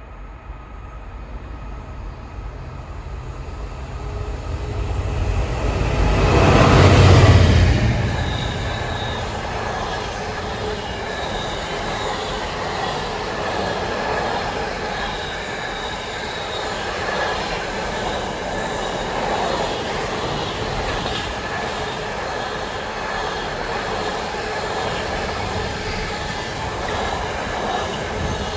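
A Class 66 diesel locomotive's two-stroke V12 engine growing louder as it approaches under power and passes at speed about seven seconds in, followed by its long train of container wagons rolling past with a steady rumble and wheel clatter over the rail joints.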